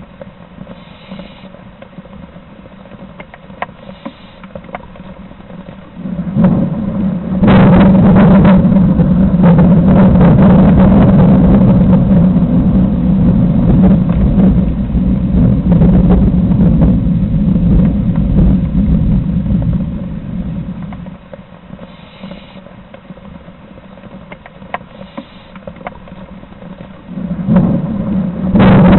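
Loud, long rumble of thunder that builds about six seconds in, rolls on for about fourteen seconds and dies away, then builds again near the end. In the quieter stretches there are a few faint, short hissing sounds.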